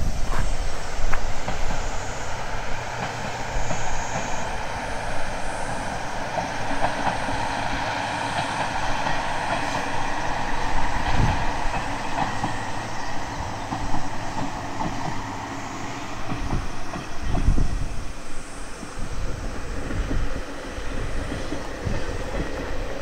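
Yodo Line diesel train running along the track, a steady low rumble with wheel noise and a high, steady squeal.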